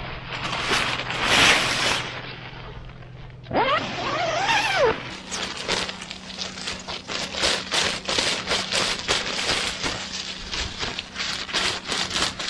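Fabric door flap of a pop-up shower tent being unrolled and then rolled back up: the stiff tent fabric rustles loudly at first, then crinkles and crackles in quick clicks as it is handled. About four seconds in there is a brief tone that rises and falls.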